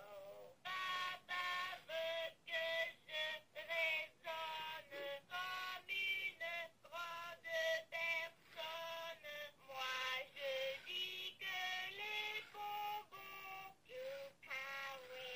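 A 2005 Furby singing a song in French in its high synthetic voice, a string of short held notes stepping up and down in pitch. It is answering the spoken French command to sing.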